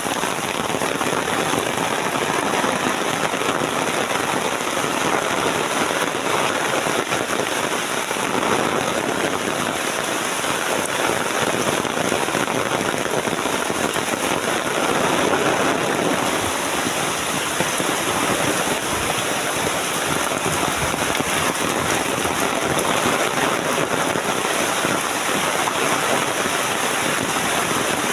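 Steady heavy rain falling and pattering densely on surfaces.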